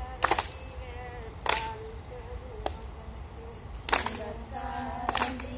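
Group of women singing a Tamil kummi folk song and clapping their hands together in time. There are five claps, about one every second and a bit.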